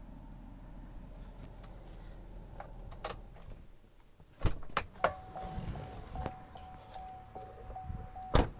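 Inside a 2007 Chevrolet Avalanche, a low steady hum stops about three and a half seconds in. A door unlatches with clicks and a clunk, and a steady electronic warning chime then sounds with ticks in it. A loud thump comes near the end as the door shuts.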